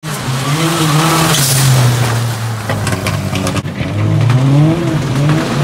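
Rallycross Supercar engines revving hard through a loose, wet corner, the pitch climbing and dropping with gear changes and throttle lifts. A run of sharp crackles comes about three seconds in, followed by a brief lift-off before the engine note climbs again.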